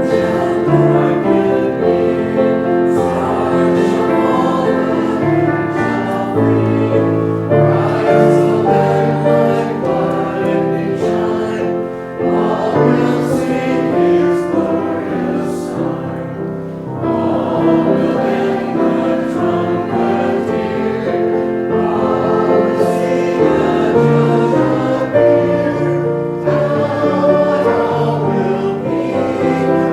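Many voices singing a hymn together to keyboard accompaniment, in sustained chords that move from note to note.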